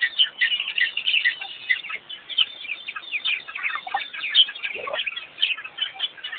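Dense chorus of many birds chirping and calling rapidly and overlapping, with one lower call sliding downward about three-quarters of the way through.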